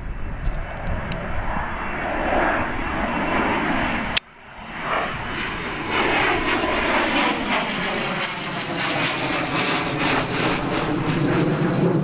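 Jet aircraft engines: a jet climbing away, then, after an abrupt cut about four seconds in, an aircraft passing low overhead. The second aircraft grows louder while its high engine whine falls slowly in pitch.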